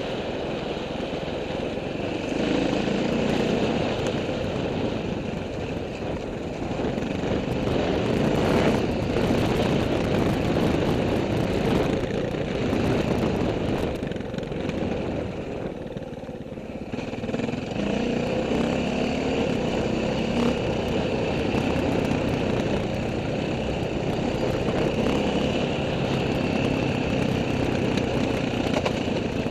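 Off-road vehicle engine running under throttle on a rough dirt track, with small clattering knocks. About halfway through the engine eases off briefly, then picks up again.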